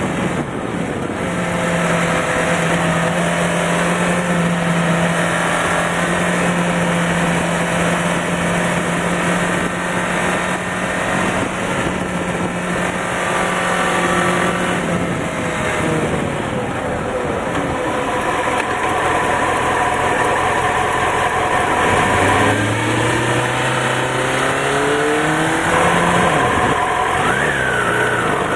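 Honda CBR900RR Fireblade's inline-four engine heard from the rider's seat over heavy wind rush. It holds steady revs at high speed, drops away as the bike slows about halfway through, then runs lower with a few quick rises and falls in revs near the end as it shifts and pulls away.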